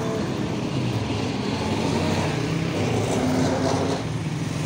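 Street traffic: small motorcycle engines running steadily, with a low engine hum under them.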